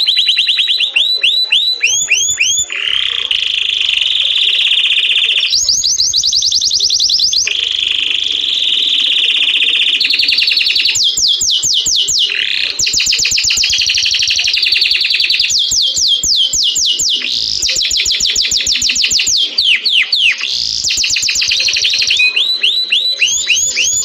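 Male domestic canary singing a continuous song of rapid trills: runs of quick sweeping notes, many to the second, alternating with buzzy rolls held for a second or two.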